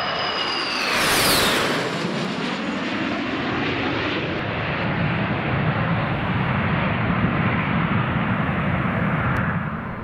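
Aircraft flying past: a high engine whine drops sharply in pitch as it passes about a second in, then a steady low engine rumble carries on.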